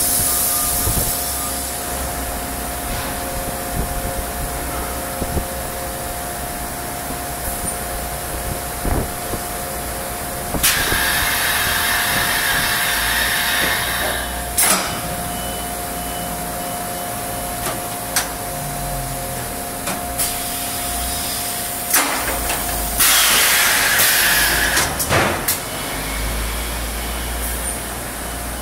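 Thermoforming machine running with a steady hum and a held tone, broken by two loud hisses of air, one about ten seconds in lasting about four seconds and another near the end lasting about two seconds. Scattered sharp metallic clanks between.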